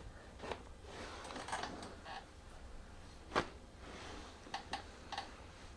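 Soft rustling and handling noises from a chiropractic session, with a few faint clicks and one sharp click or pop about three and a half seconds in.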